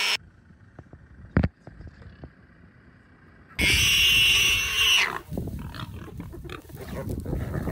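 Warthog squealing in distress as it is attacked by a leopard: after a quiet stretch with a single sharp knock, one loud, shrill squeal about halfway through, lasting over a second.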